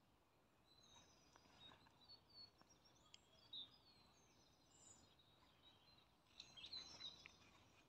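Faint songbirds chirping and whistling over a very quiet outdoor background, with a few louder calls about three and a half seconds in and again near the end.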